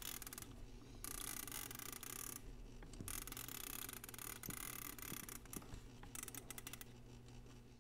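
Plastic flip tiles of a 1970 Howard Miller flip clock with a Copal 101 mechanism clattering as the time is run forward by hand. The tiles flick over in fast runs, with short pauses, and thin to separate flicks near the end.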